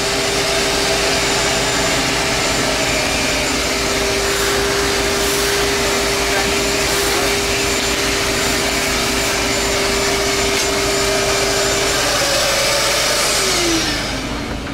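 Shop vacuum running steadily, cleaning up around the sink cut-out, then winding down with a falling whine near the end as it is switched off.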